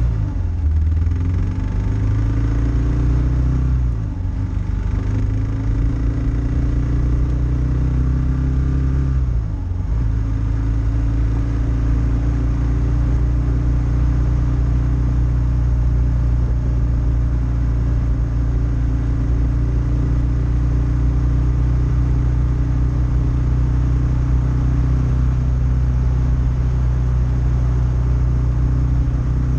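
Kawasaki KLR650 single-cylinder four-stroke motorcycle engine under way on a gravel road: the engine pitch drops and climbs back three times in the first ten seconds, as at gear changes while accelerating, then holds steady at cruising speed.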